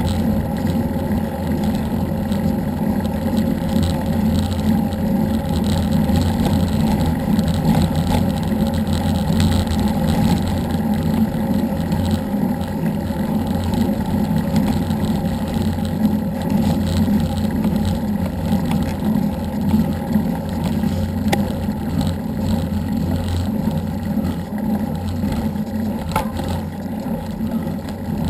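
Wind buffeting a bicycle-borne action camera's microphone as it rolls downhill at speed: a steady, loud, unpitched rumble, with an occasional faint click.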